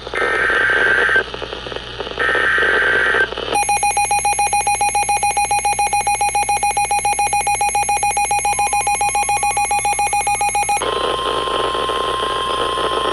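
NOAA Weather Radio EAS alert: two short bursts of buzzy SAME digital header data, then a weather-radio alarm beeping rapidly, several beeps a second, which gives way about three-quarters through to the steady 1050 Hz warning alert tone.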